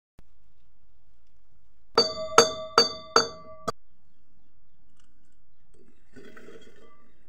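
Iron pestle knocking against a metal mortar pot: four ringing metallic clangs about 0.4 s apart and a lighter fifth. Near the end, halved raw mangoes slide off a leaf and tumble into the pot with a softer clatter.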